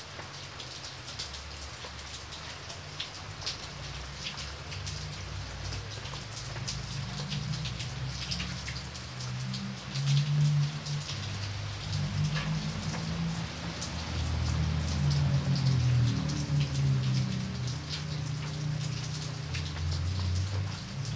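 Heavy rain falling steadily, with many close drops landing as sharp ticks. A low rumble underneath swells louder in the second half.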